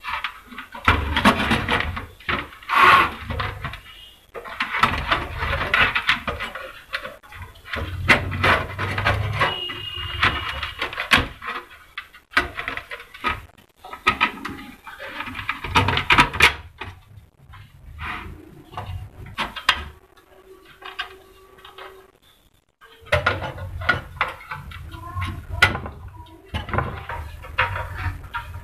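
Clicks, knocks and scrapes of small metal parts being handled and fitted into a sheet-metal battery charger case: a rotary selector switch is mounted, then a knob is fitted to the front panel.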